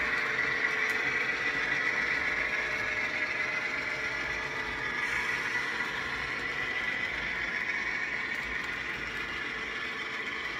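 HO scale model freight train of covered hoppers rolling past on the track: a steady metallic rolling noise of wheels on rails with a high, steady whine, easing off slightly as the train moves along.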